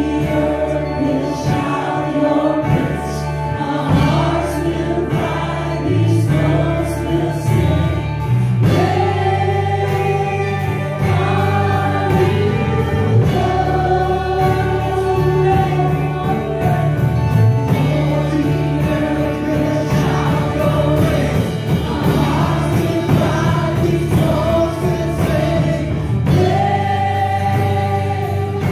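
Live worship music: a group of voices singing long held notes together in a slow praise song, over bass and a steady beat of percussion.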